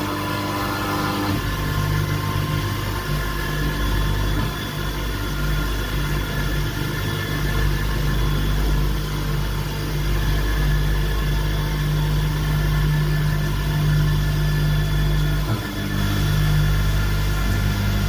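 CNC vertical machining centre running: a steady machine hum with a few thin high steady tones above it. The hum shifts about a second in and dips briefly near the end.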